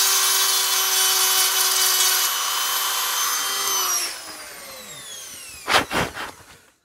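Small high-speed power tool, motor whining steadily as it grinds plastic off the MacBook Pro's antenna cover. About four seconds in it is switched off and its whine falls in pitch as it spins down. A few sharp knocks follow near the end.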